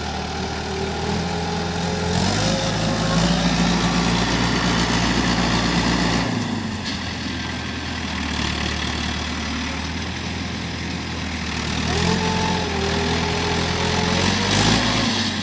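Diesel tractor engines labouring to drag a bogged tractor out of deep mud on a tow rope. The engine sound swells louder twice, for a few seconds about two seconds in and again near the end.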